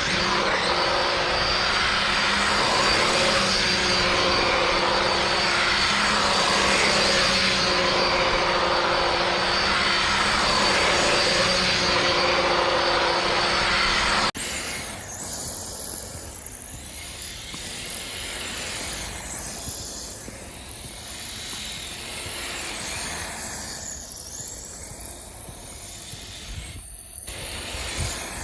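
Small electric RC car running as it drifts: steady motor whine over tyre and running noise. About halfway through it changes abruptly to a quieter sound that rises and falls.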